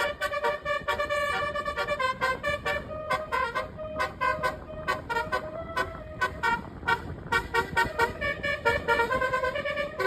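Basuri-type 'telolet' bus horn playing a tune: a run of pitched multi-tone honks, quick short stabs in the middle and longer held notes at the start and near the end.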